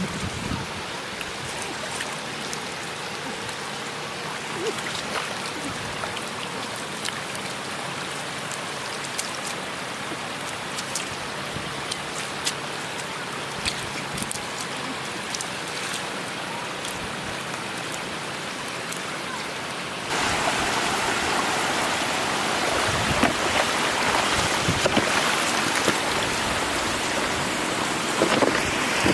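Shallow floodwater running across a road, a steady splashing hiss, with scattered small splashes and knocks from catfish thrashing in the water and hands grabbing at them. The water noise gets suddenly louder about two-thirds of the way through.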